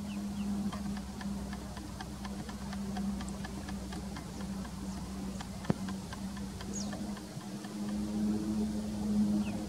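A few faint, short, high falling peeps of a mallard duckling, the clearest a little after two-thirds of the way through, over a steady low hum and a rapid faint ticking of about four ticks a second. A single sharp click a little past halfway.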